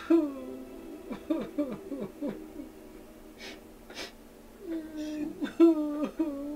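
A person sobbing and whimpering: short, quavering cries that fall in pitch, in two clusters, with loud breathy sniffs or gasps between them at about three and a half and four seconds in.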